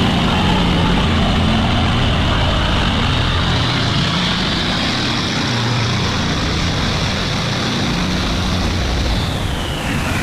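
A boat engine running loud and close, with a low rumble under a high whine that climbs slightly and then drops in pitch near the end.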